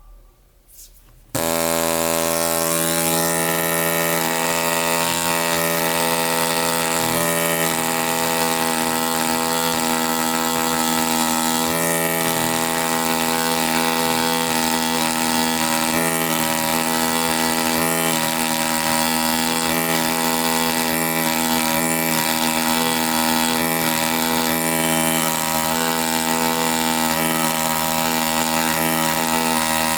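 ZOIC PalaeoTech Bronto pneumatic air scribe starting up about a second and a half in and then running steadily with a loud, even buzz and air hiss.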